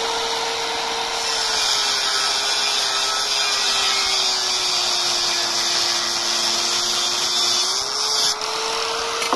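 Nagasaki angle grinder with a small cut-off disc cutting a steel rod: the motor's whine drops in pitch as the disc bites, over a harsh high hiss of cutting. The hiss stops suddenly about eight seconds in and the motor speeds back up.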